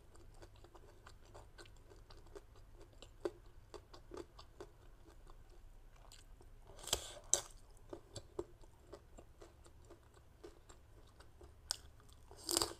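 Faint, close-up chewing of green mango and shrimp salad eaten on crispy rice cracker (bánh đa), with small crunches throughout. Two louder crunches come about seven seconds in, and a louder bite near the end.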